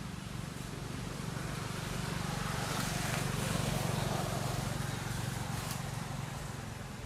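A road vehicle passing by: a steady low hum with noise that swells to a peak about four seconds in and then fades.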